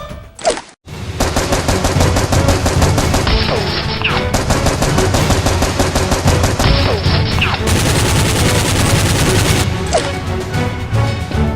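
Rapid automatic gunfire, a fast unbroken string of shots, starting about a second in over background music. A brief falling whoosh and a short gap come just before it.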